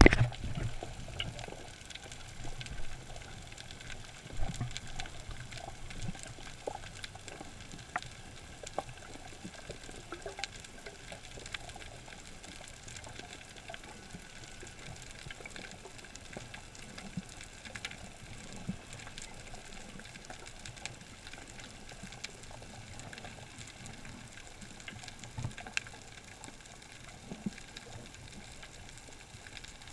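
Underwater ambience picked up by a camera in a waterproof housing: a low hiss with scattered clicks and crackles, and a louder knock at the start and another about four seconds in.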